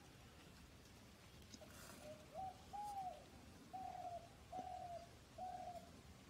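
A bird calling: a series of about five short, hooting notes, roughly evenly spaced, some bending down in pitch at the end, over a quiet background.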